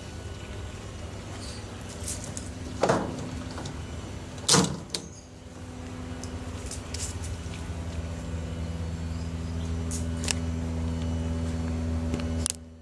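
LG TurboDrum top-loading washing machine's motor turning the drum of a bedding wash load with a steady hum. There are two heavy thumps about three and four and a half seconds in, and the motor cuts off suddenly near the end.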